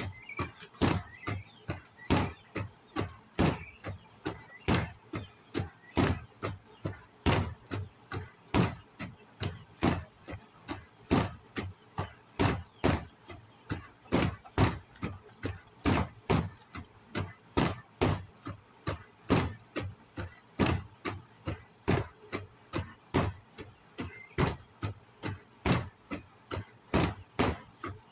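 Sharp knocks repeating at an even pace, roughly two a second.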